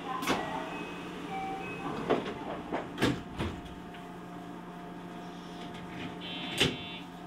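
Inside a JR Special Rapid train car standing at a station platform: a steady low hum from the train's equipment, broken by several sharp knocks and clicks, with a short high buzzing tone and a loud knock near the end.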